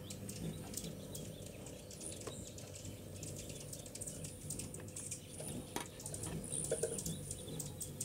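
Faint high bird chirps, with light irregular clicks of a plastic container being handled and a faint steady hum underneath.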